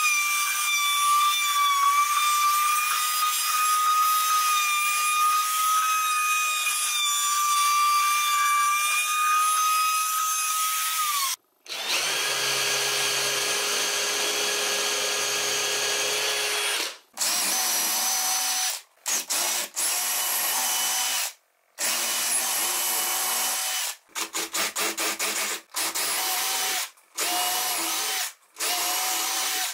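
Electric power tools running on pine wood. A steady high whine lasts about eleven seconds and stops suddenly. A different tool then runs steadily for about five seconds, followed by a string of short drill runs, each started and stopped abruptly.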